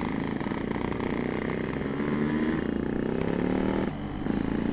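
Yamaha RX-King 135's two-stroke single-cylinder engine running on the move, its note climbing from about two seconds in, then dropping briefly about four seconds in before carrying on.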